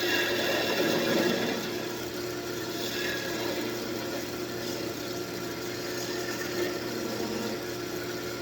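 Wood lathe running steadily, with a gouge cutting into the spinning table-leg wood at times, loudest in the first second or so and again briefly a few seconds in.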